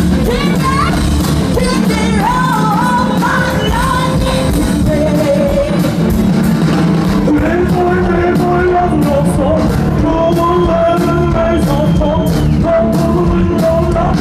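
Live soul-gospel band playing loudly with drums, while a woman sings wordless vocal runs over it, sliding through the notes in the first few seconds and holding longer notes later.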